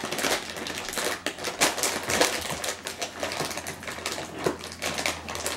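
Plastic-foil Lay's potato chip bag crinkling and crackling as it is gripped, twisted and pulled at by hand in an attempt to tear it open.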